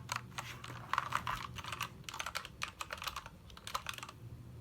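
Irregular clicking from the keys of a new gaming keyboard as it is handled out of its packaging.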